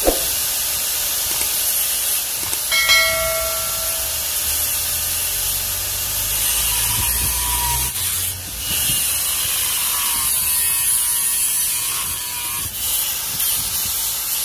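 Electric angle grinder with a thin cut-off disc running steadily and cutting through an aluminium car air-con refrigerant pipe, with a high hiss and brief ringing tones where the disc bites the pipe.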